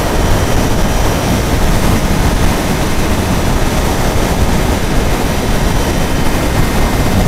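Steady wind and road noise on a helmet-mounted microphone while riding a 2013 Triumph Daytona 675R sport bike at road speed, an even rush heaviest in the low end.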